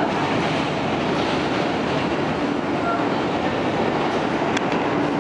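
R160 subway car with Alstom propulsion running along elevated track, heard from inside the car: a steady rumble of wheels and motors, with one brief tick about four and a half seconds in.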